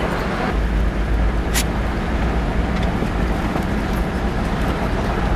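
Vehicle driving along a dirt bush track: a steady engine and road rumble, with a single sharp click about one and a half seconds in.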